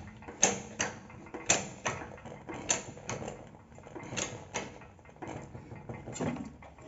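Irregular sharp metallic clicks and clinks of hand tools working on a rear suspension arm while a tight, worn-out bushing is being forced out.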